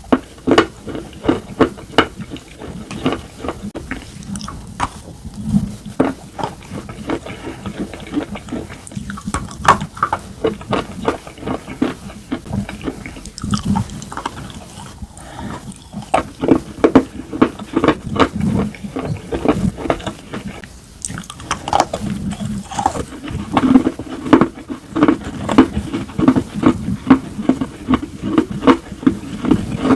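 Close-up biting and crunching of slate pencils and slate bar with paste: many sharp crunches with wet chewing between them, coming thicker and louder in the second half.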